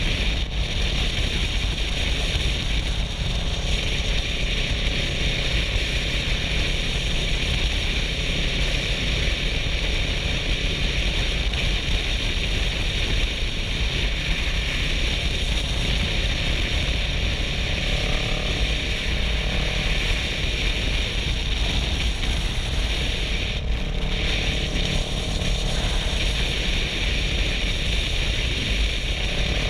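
Kawasaki Versys 650's parallel-twin engine running at a steady cruising speed, mixed with wind and road noise over the rider's helmet.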